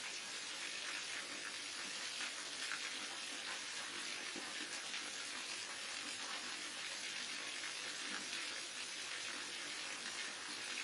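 Falling water from a waterfall: a steady, unbroken rush of splashing water, strongest in the upper range with little bass.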